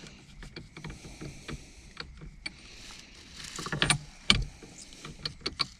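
Metal sockets and a ratchet with an extension clinking and clicking as they are handled and a socket is fitted onto the steering wheel nut, with one sharper knock a little past the middle.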